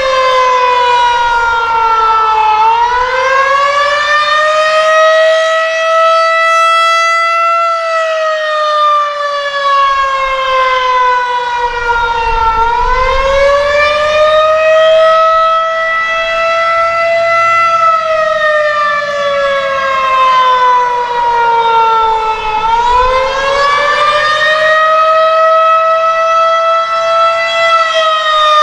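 Federal Signal 2001-130 electromechanical outdoor warning siren sounding the attack signal: a loud wail that falls and rises in pitch, about a full rise and fall every ten seconds.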